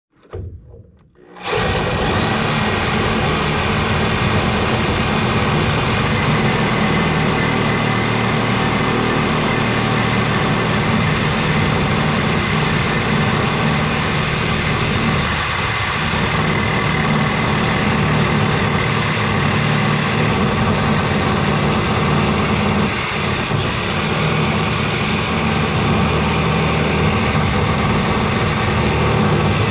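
Small engine running steadily at a constant speed, starting suddenly about a second and a half in.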